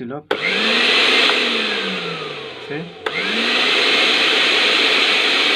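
Panasonic blender motor running at speed, started by pressing the safety-lock switch by hand with no jug fitted. It drops briefly and restarts with a click about three seconds in. It runs fine this way, showing the motor works and the fault lies in the jug's lock.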